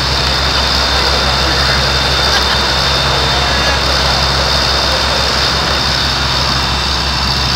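Fire engines running steadily while pumping water streams onto the fire: an even mechanical drone with a constant hiss over it.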